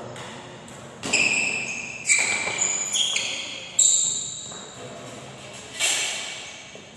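Badminton rally: a badminton racket strikes a shuttlecock with sharp hits about a second apart, with short high squeaks of shoes on the court, echoing in the hall. There is a longer gap before the last hit near the end.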